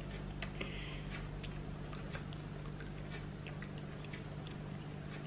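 A child quietly eating spaghetti, slurping noodles and chewing with small scattered mouth clicks, over a steady low hum.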